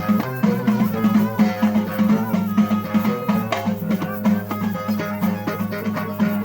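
Instrumental folk music: a plucked string instrument plays a melody over a steady, fast hand-drum beat.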